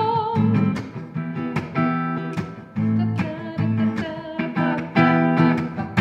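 A woman's held sung note with vibrato ends about half a second in. Then a hollow-body electric guitar strums chords in a steady rhythm, changing chord about once a second.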